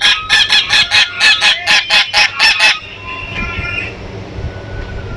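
Goose honking: a rapid run of about a dozen loud honks, roughly four a second, that stops about three seconds in, followed by fainter, softer calls.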